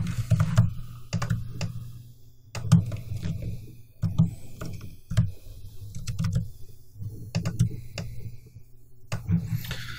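Computer keyboard and mouse being worked: irregular, scattered clicks and taps, a few at a time with short gaps between.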